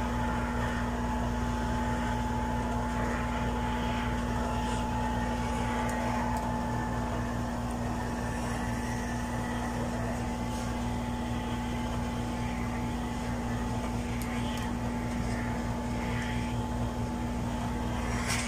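Handheld garment steamer running while steaming a hanging blouse: a steady electric hum with a faint hiss of steam and a few light ticks from the fabric being handled.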